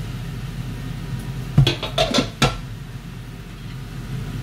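Kitchen clatter: a few sharp knocks and clinks of kitchenware, bunched about a second and a half to two and a half seconds in, over a steady hum.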